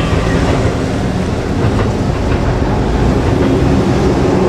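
JR Kyushu 787 series electric train running past at close range: a loud, steady rumble of wheels on rail, with a few clicks about two seconds in.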